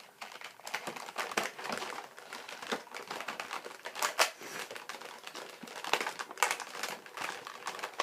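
Plastic and cardboard toy packaging crinkling and clicking as it is handled, with irregular sharp crackles and snaps while the figure and its parts are worked out of the box.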